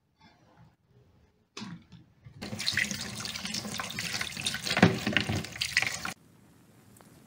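Kitchen tap running and splashing onto eggs being washed by hand in a plastic bowl in a stainless steel sink. The water starts about two and a half seconds in and cuts off suddenly near the end.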